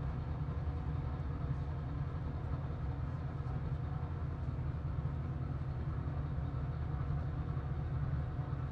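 A fan running with a steady low hum.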